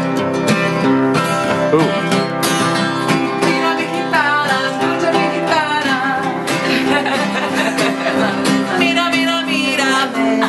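Acoustic guitar strummed in a steady rhythm, with a voice singing along from about four seconds in.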